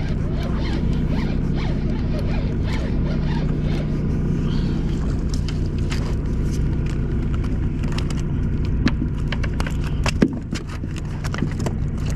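A boat engine hums steadily under the clicking and scraping of a spinning reel being cranked as a small fish is reeled up to the boat, with a sharp knock about ten seconds in.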